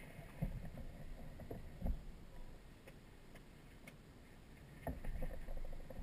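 Faint scattered knocks and creaks with low rumbles from the Apollo Jet Star microlight trike being handled while its engine is off.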